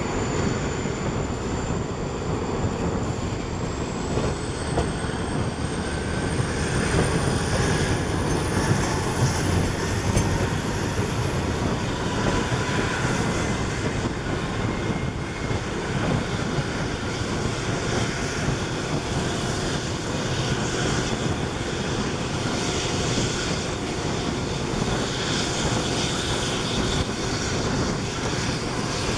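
EMD WDP4 diesel-electric locomotive working hard hauling a passenger train, heard from a coach window behind it: the two-stroke V16 engine running steadily under power, mixed with wheel and rail noise. A faint high whine climbs in pitch over the first half, then holds steady.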